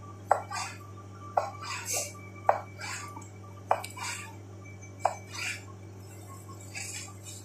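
Kitchen knife dicing cucumber on a cutting board: five sharp knocks of the blade striking the board, spaced about a second apart, with softer cutting noises between them.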